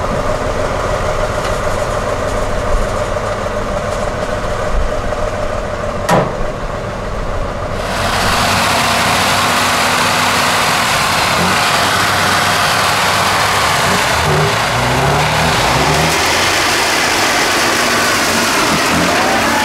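Tatra 813 8x8 truck's diesel engine running as it works over a steep off-road slope, with one sharp click about six seconds in. About eight seconds in, the sound jumps to a louder, hissier din as the truck forces its way through brush, the engine's pitch rising and falling under load.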